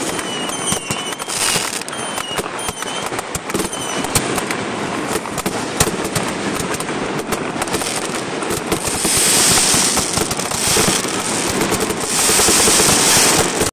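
Aerial fireworks going off in rapid succession, with dense cracking and popping. Short falling whistles sound in the first few seconds, and a loud hissing crackle builds from about nine seconds in.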